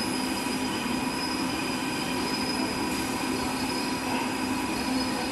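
Factory machinery running steadily: an even mechanical hum and hiss with several steady whining tones on top, unchanging throughout.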